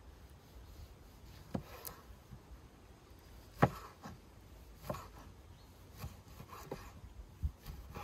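A large cleaver-style knife slicing an orange and striking a wooden cutting board: about six sharp knocks at uneven intervals, the loudest about halfway through.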